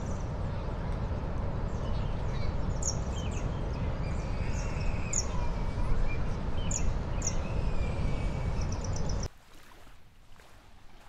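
Wind buffeting the microphone as a steady low rumble, with small birds chirping and calling over it in short high notes. About nine seconds in it cuts off abruptly to a much quieter background.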